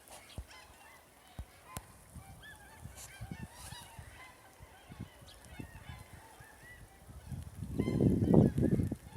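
Many short honking calls from a flock of waterfowl, faint and overlapping. Near the end a loud, uneven low rumble comes in over them.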